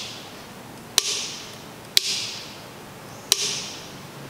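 Rocker power switch on a light microscope being clicked on and off: three sharp clicks about a second apart, each followed by a brief fading hiss.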